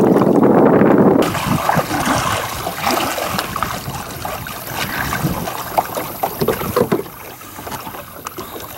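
Kayak paddle strokes in lake water, with splashes, drips and small knocks. A loud rush of noise fills the first second, then cuts off.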